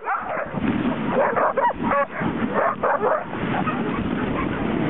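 A team of sled dogs barking and yipping excitedly in harness, the clamour of dogs eager to run at the start. The calls thin out after about three seconds, leaving a steady rushing noise as the sled moves over the snow.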